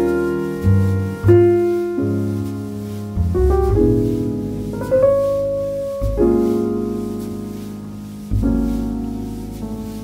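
Slow piano music: chords struck one after another, each left to ring and fade.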